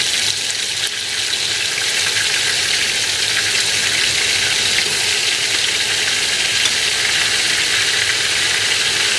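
Golden-browned onions in hot oil sizzling in a steel pot, a steady crackling hiss that carries on from the pan's stored heat with the burner just switched off.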